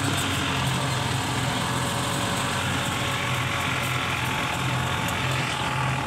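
Golf cart driving along a paved street: a steady low running hum with road noise.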